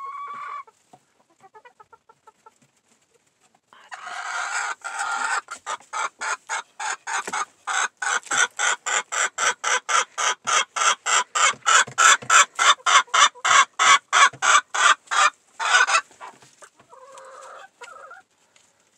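Chickens clucking. A loud, fast, even run of clucks starts about four seconds in, repeating about four times a second and growing louder, then stops about sixteen seconds in, with a few softer clucks before and after.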